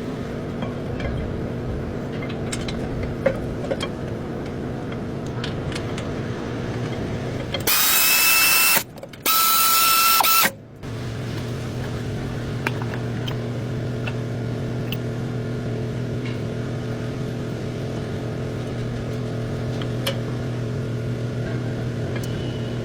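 Steady mechanical hum with scattered light clicks, broken about a third of the way in by two loud hissing blasts of about a second each with a whistling tone, a short gap between them.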